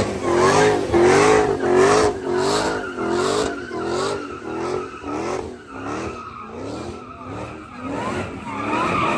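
Car doing donuts, its tyres squealing in a wavering tone that keeps rising and falling about twice a second. It is loudest at first and eases off midway before swelling again near the end.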